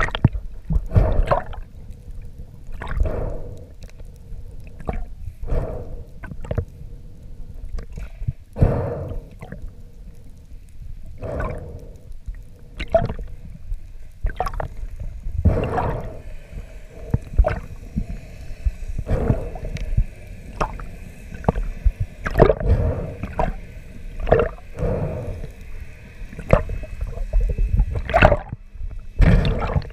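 Underwater recording of a spearfisher swimming: water rushing and swirling past the camera in irregular whooshing surges every second or two, over a faint steady hum. A fainter, higher whine joins after about fifteen seconds.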